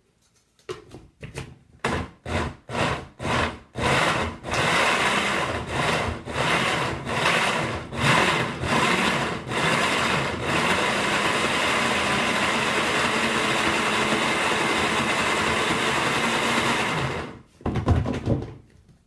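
Countertop blender pulsed in a quick series of short bursts, then longer ones, then run steadily for about seven seconds before it stops, chopping cubes of foliage material in water with green paint and PVA glue. A brief low thump follows near the end.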